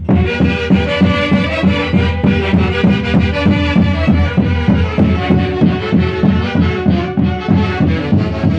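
Orquesta típica from the Peruvian central highlands playing a santiago: many sustained melody instruments over a steady, even drum beat, the full band coming in right at the start over the drum.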